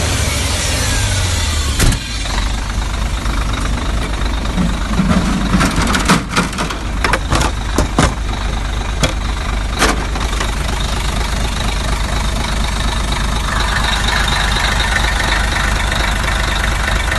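Scania 114 truck's diesel engine settling to idle as the revs fall away in the first two seconds, then idling steadily. There is a sharp click near two seconds and a run of clicks and knocks about six to ten seconds in. A steady hiss comes in later.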